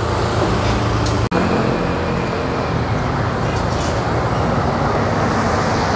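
Steady street traffic noise, with a brief cut-out a little over a second in.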